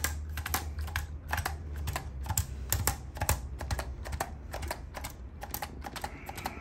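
Corded handheld electric chiropractic adjusting instrument tapping on the neck and upper back, giving sharp percussive clicks several times a second in short irregular runs.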